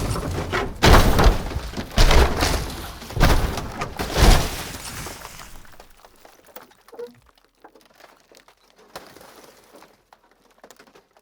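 Car crash rollover sound effect: a car tumbling over with four heavy metal-and-glass impacts about a second apart, each one slow revolution of the roll. Scattered debris and glass pieces then rattle and settle, fading away.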